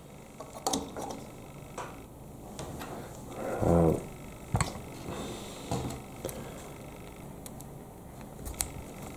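Small plastic Lego pieces clicking and tapping as they are handled and fitted, a handful of separate clicks, with a short sound from a person's voice about four seconds in.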